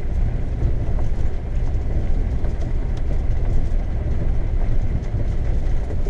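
Steady low rumble of a 1991 Tioga Class C motorhome driving along a gravel road, heard from inside the cab: engine and tyres on gravel, with a few small clicks.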